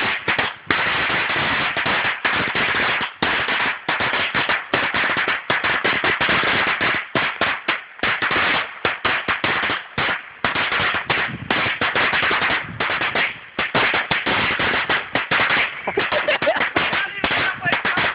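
An 800-shot firecracker string going off in a fast, continuous chain of sharp bangs, with a few brief gaps.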